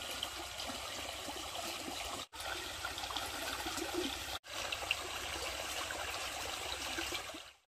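Small stream of running water rippling and splashing over fallen logs and branches, a steady rushing. It cuts out for an instant twice and fades away near the end.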